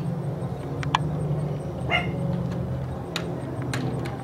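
Steady low drone of a single-engine propeller warplane flying overhead, with a dog barking twice, about one and two seconds in.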